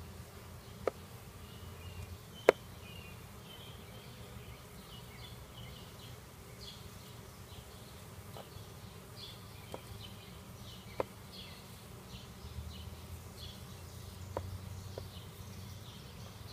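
Honeybees from a package buzzing steadily, with a few sharp clicks of handling, the loudest about two and a half seconds in.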